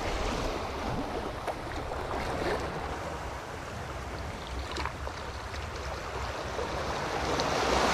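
Small sea waves washing and lapping over the rocks of a breakwater, a steady noisy wash.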